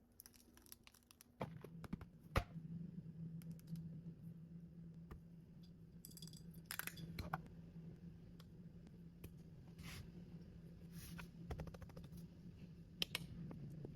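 Small kitchen handling sounds: scattered clicks, taps and brief scrapes of utensils and food prep, the sharpest click about two seconds in. A steady low hum runs underneath from about a second and a half in.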